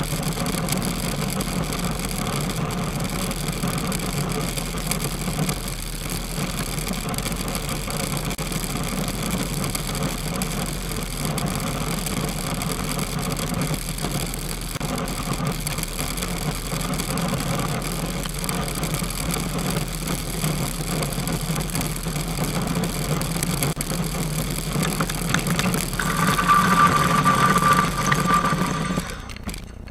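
Steady traffic and engine noise on the road, then a car horn sounds one long, steady honk of about two seconds near the end: a speeding driver honking to clear the way.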